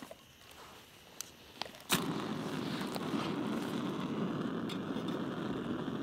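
A few sharp clicks as a backpacking gas canister stove is lit, then about two seconds in the burner catches and runs with a steady rushing hiss.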